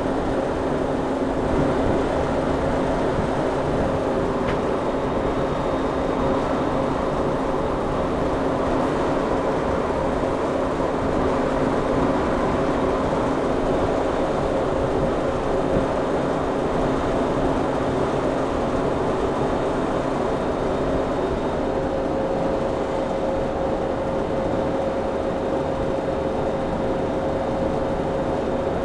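Commercial reach-in refrigerator's condensing unit, compressor and condenser fan running steadily with an even hum, while its pressures fall with the condenser coil uncovered.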